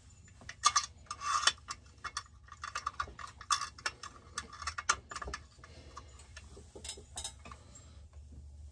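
Irregular small clicks and light knocks of plastic and metal chainsaw parts and hand tools being handled as a Holzfforma 372XP chainsaw is assembled, busier in the first half and sparser later.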